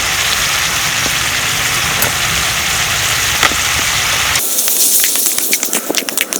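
Country chicken frying in ghee in a kadai: a steady sizzling hiss with a low rumble underneath, changing abruptly about four seconds in to sharp crackling and popping.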